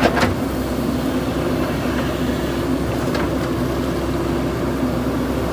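JCB backhoe loader's diesel engine running steadily under work, with a sharp knock just after the start and a fainter one about three seconds in.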